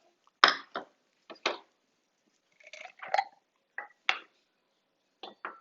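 Kitchen utensils and dishes clattering: a string of short, sharp knocks and clinks, the loudest about half a second in.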